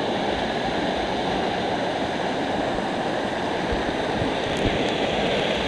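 Waterfall: steady, continuous noise of falling water.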